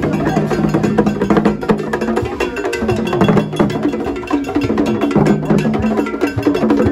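Traditional drums carried on bearers' heads in a procession, struck with wooden sticks: a fast, dense rhythm of sharp stick strikes.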